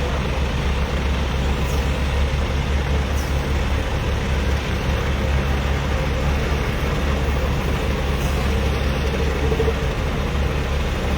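A heavy diesel engine running steadily at low speed, a constant deep rumble.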